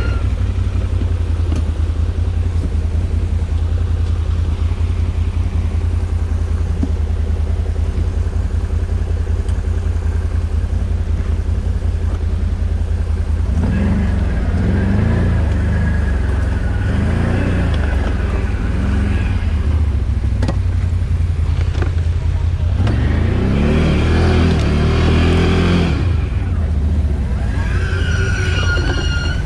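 ATV engine running steadily with a low, even note, and louder stretches in the middle and again near the end.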